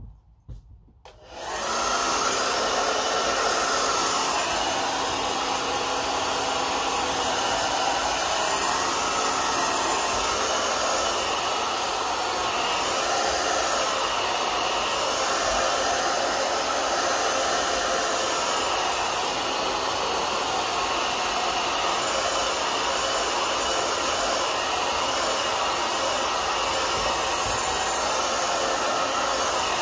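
A hand-held hair dryer switches on about a second in and then blows steadily as it dries hair.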